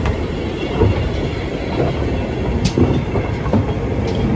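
GWR Castle-class steam locomotive No. 7029 Clun Castle moving slowly on the track: a steady low rumble with a few separate clanks from the wheels and motion.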